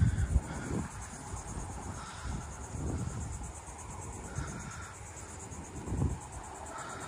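Outdoor ambience with a steady, high insect trilling underneath. A few low thumps come near the start and again about six seconds in.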